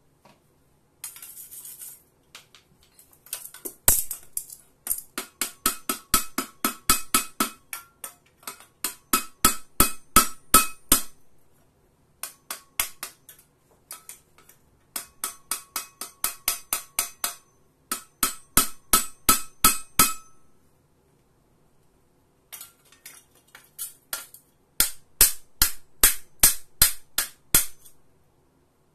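Hammer striking a welded steel piece on an anvil: fast runs of ringing metal-on-metal blows, about three or four a second, broken by short pauses.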